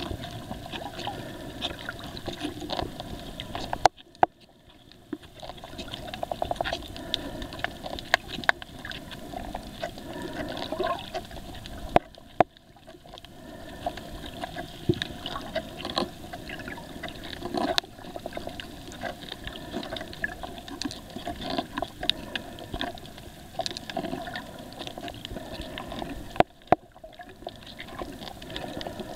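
Muffled underwater noise heard through a waterproof camera housing: a steady water rush with scattered clicks and crackles. Sharp knocks come about four, twelve and twenty-six seconds in, each followed by a moment of quieter sound.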